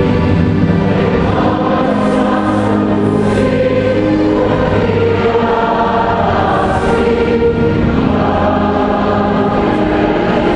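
Choir singing a sacred hymn in long held chords.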